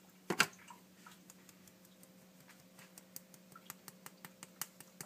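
A spoon knocks once sharply against a mixing bowl, then clicks lightly and rapidly against it, about six times a second, while flour is spooned into the dough.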